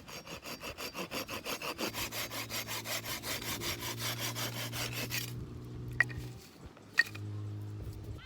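Hand saw cutting through firewood in quick, even strokes for about five seconds, then two sharp clicks a second apart. A steady low hum runs underneath.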